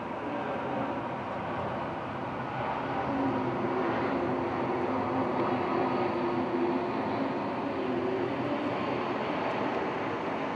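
Boeing 747-400F freighter's jet engines on landing, a steady rumble that swells slightly in the middle and carries a faint wavering hum. Heard from inside a hotel room.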